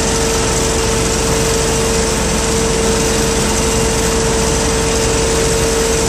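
Hot-tap drilling rig for a line stop running steadily, with a constant tone over a hiss, as its cutter bores a hole into the 8-inch supply pipe of a live hydronic loop.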